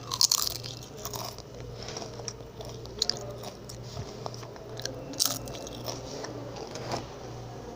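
Cookies being bitten and chewed close to the microphone: crisp crunches now and then, the loudest just after the start, with quieter chewing in between.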